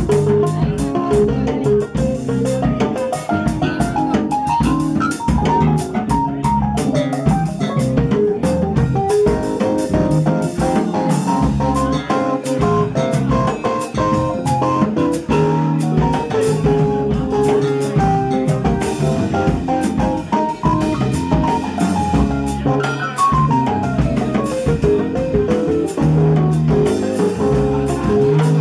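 Live salsa jazz band playing an instrumental passage: drum kit and percussion under a moving melodic lead line, with a quick falling run of notes about three quarters of the way through.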